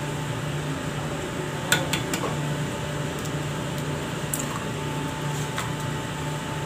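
Chicken eggs being cracked against the rim of a stainless-steel mixer bowl: a few short, sharp taps, loudest about two seconds in, over a steady low hum.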